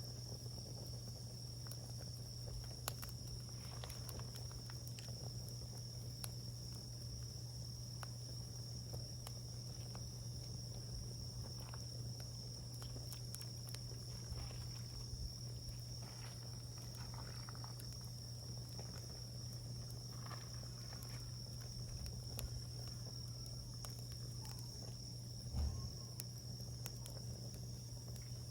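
Wood campfire crackling with scattered small pops and ticks, over a steady high-pitched insect drone and a low steady hum. There is a slightly louder knock near the end.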